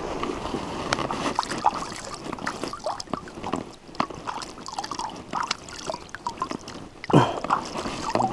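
Water sloshing, trickling and dripping close by, with many small irregular splashes and a louder splash about seven seconds in.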